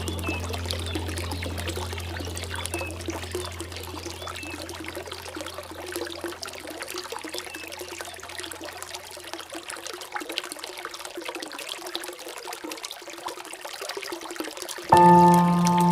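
Water trickling and pouring steadily, like a small stream, under a low musical drone that fades away over the first ten seconds. Near the end a loud ringing chord of several steady pitches sets in suddenly, like a struck bell or singing bowl, as music starts again.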